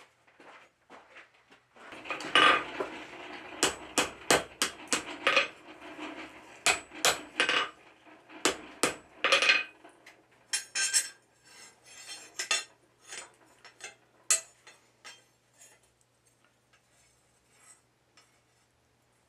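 Forged steel bars and blacksmith's tongs clinking and clattering against each other and the anvil as a hot, partly forged divider leg is laid against its cold pattern piece. A quick run of sharp metallic knocks, the loudest about two seconds in, thinning out after about fifteen seconds.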